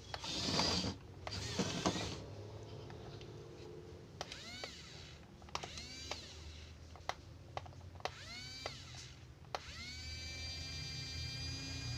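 Small electric motors of a Yigong YG258-F remote-control toy bulldozer whining in short runs, each starting with a click and rising in pitch before levelling off. A longer, steady run of motor whine starts near the end.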